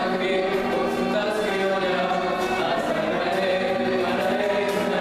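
Men's voices singing a song together, accompanied by a bowed violin and a strummed cuatro.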